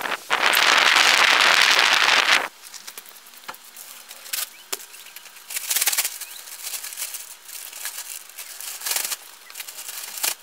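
Black plastic garbage bag rustling and crinkling in short bursts as it is shaken open and handled, with old mineral wool insulation being stuffed into it. Near the start a loud, even rush of noise lasts about two seconds.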